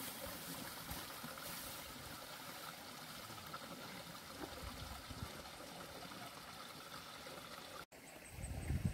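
Faint steady trickle of flowing water. Near the end a louder low rumble sets in.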